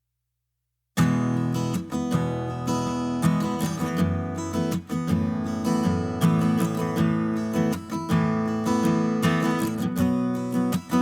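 Background music led by a strummed acoustic guitar, starting about a second in.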